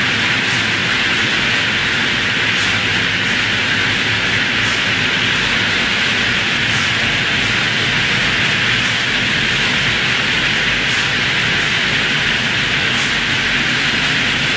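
Steady hissing noise of running factory production-line machinery, even in level throughout, with a faint pulse in the hiss about every two seconds.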